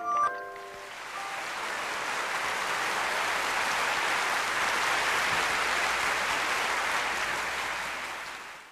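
The last bell-like notes of music stop about half a second in. Audience applause follows and runs steadily, fading out near the end.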